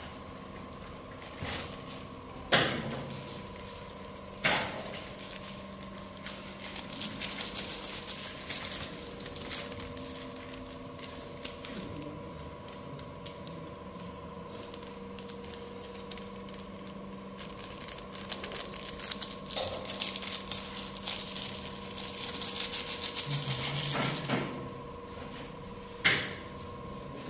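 Crinkling and rustling handling noises, with three sharp knocks, over a steady electrical hum.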